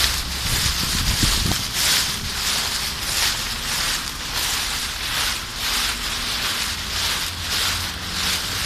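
Footsteps crunching through a deep layer of dry fallen leaves, about two steps a second, as a large dog and its walker move through them, over a steady low rumble.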